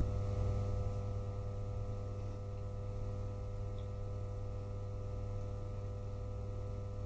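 Steady electrical hum made of several constant tones, with no distinct event.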